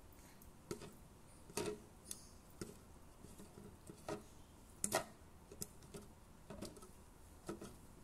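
Faint, irregular metallic ticks and clicks, about a dozen over several seconds with a couple of louder ones, from a freshly stopped, hot motorcycle engine as its oil drain bolt is unscrewed by hand.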